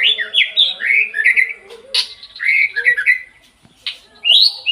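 White-rumped shama singing: a fast run of loud, varied whistled phrases, mostly sliding down in pitch, with one sharp note about two seconds in, a short pause, then singing again near the end.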